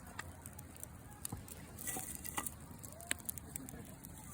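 Wood campfire crackling, with scattered sharp pops and snaps and a brief hiss about two seconds in.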